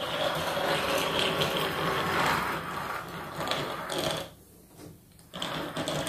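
Small plastic wheels of a toy tandem bicycle rolling and rattling across a wooden tabletop, a dense run of fine clicks. The rattle stops for about a second partway through, then starts again.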